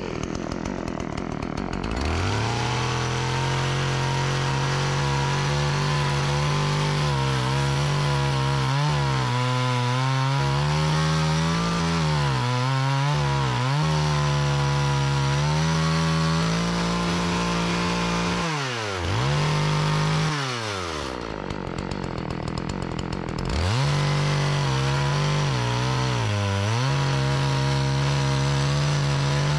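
Two-stroke Partner 405 chainsaw idling, then revved hard about two seconds in and cutting into a log at full throttle, its note dipping now and then under the load. About two-thirds of the way through it drops back to idle for a couple of seconds, then revs up again and keeps cutting. It holds full throttle without stalling, the fault it was repaired for.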